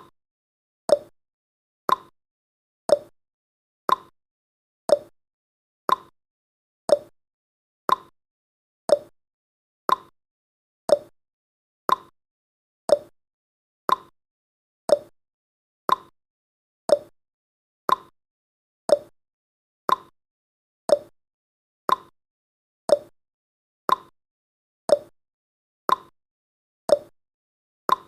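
Countdown timer ticking sound effect: a short, sharp tick once every second, each dying away quickly, with silence between.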